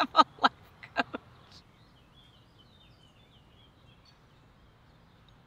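Five short, loud bursts close together in the first second or so, then faint birdsong, a wavering high warble, from about two seconds in.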